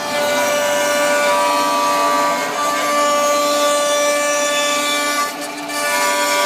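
Multi-head 5-axis CNC wood router running: its spindles whine at several steady pitches over a hiss of cutting noise, dipping briefly about five seconds in.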